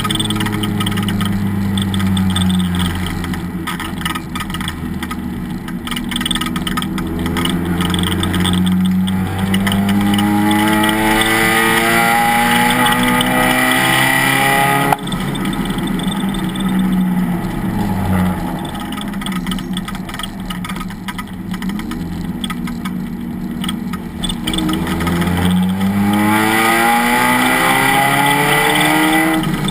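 Race car engine under hard acceleration, its pitch climbing steadily for several seconds. It breaks off sharply about halfway through, drops lower, then climbs again near the end.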